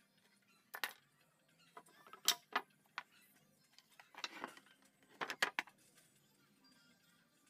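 Meranti wood boards and a steel try square being handled on a wooden workbench: scattered sharp knocks and clacks of wood on wood, a short scrape about four seconds in, and a quick cluster of knocks a little after five seconds.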